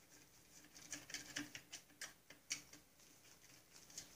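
Faint small clicks and scratches of a hand screwdriver turning screws on a small engine's sheet-metal cover, several ticks a second, thinning out after about three seconds.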